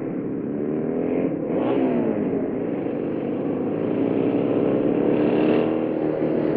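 Motorcycle engine running, growing louder over the first few seconds, with a brief change in engine pitch about a second and a half in.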